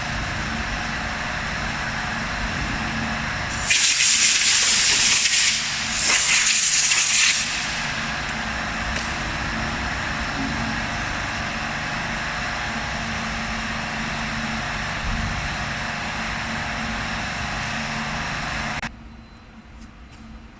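A CNC router machine running with a steady hum and hiss. Two loud bursts of compressed-air hiss come a few seconds in, and near the end the running sound cuts off suddenly.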